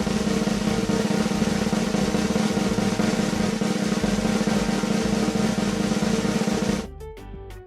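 Snare drum roll sound effect, a steady fast roll that cuts off suddenly about seven seconds in, leaving a softer ringing.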